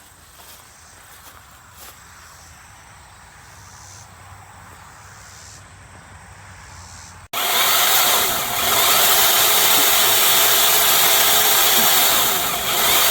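Faint outdoor background, then about seven seconds in a 12-inch brushless cordless electric chainsaw cuts in suddenly, running loud and steady at full speed with a high motor whine. The level dips briefly twice.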